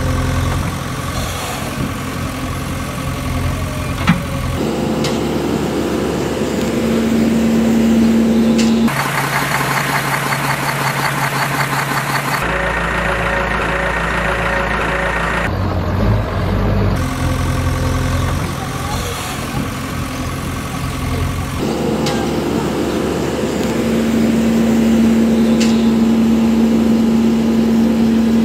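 Vehicle engine sound effects, idling and running steadily, several different clips spliced together that switch abruptly every few seconds.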